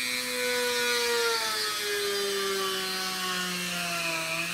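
Dremel rotary tool running with a 2 mm bit, drilling a pilot hole through masking tape into a wooden rifle stock. It makes a steady whine that drops slightly in pitch about a second and a half in.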